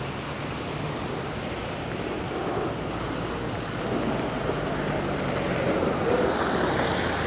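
Heavy rain pouring down onto a flooded street and pavement: a steady, dense hiss of water.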